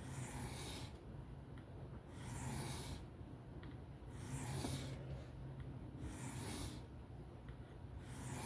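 Folding-knife blade being stroked freehand across a 400-grit sharpening stone: repeated hissing scrapes, roughly one every one to two seconds, over a faint steady hum.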